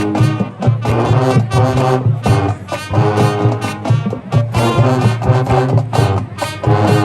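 High school marching band playing, brass and trombones over a steady drum beat.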